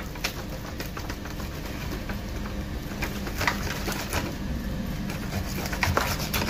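A knife and tongs scraping and clicking against an aluminium foil tray while a roast chicken is cut apart, scattered short scrapes and clicks over a steady low hum.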